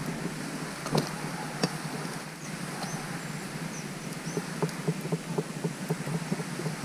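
A hand-held plastic sheet fanning the embers of a cooking fire under grilling fish, flapping in quick, even strokes about four a second from about halfway in. Two sharp clicks about a second in.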